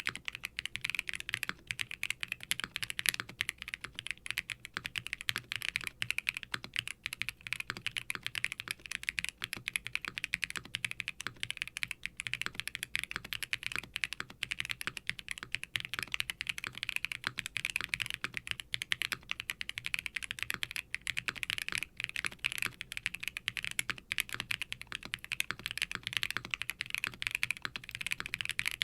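Continuous fast typing on a HIBI June R3 mechanical keyboard with factory-lubed Kailh Lunar linear switches (45 g springs, POM housings, POK stems), GMK double-shot ABS keycaps and an FR4 plate in a silicone case. The keystrokes are a dense, unbroken run of deep, poppy clacks.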